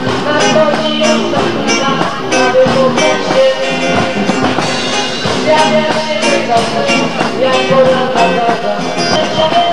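A live band playing: electric guitars over a drum kit keeping a steady beat.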